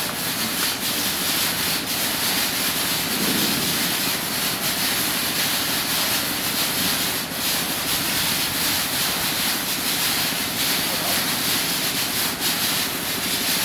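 Cherry packing line running: a steady machinery noise from the conveyors carrying cherries along the sorting table, with faint scattered ticks.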